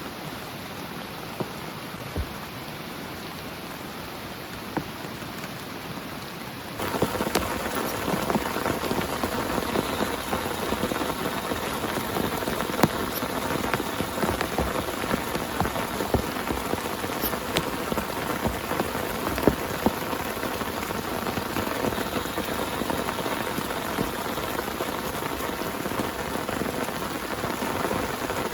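Heavy rain: a soft, steady hiss for the first several seconds, then, about seven seconds in, it abruptly turns louder and denser, with many distinct drops hitting a surface.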